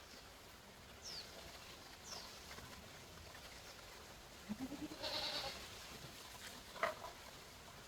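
A farm animal calls once, about halfway through, rising in pitch. There are two short high chirps earlier and a sharp knock near the end.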